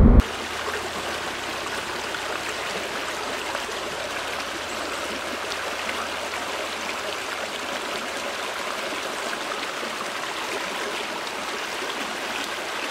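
Flowing water of a stream, a steady even rushing with no let-up.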